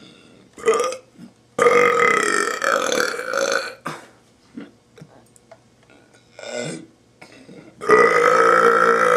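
A man burping deliberately: a short burp, then a long drawn-out burp of about two seconds, a few small ones, and another long loud burp starting near the end.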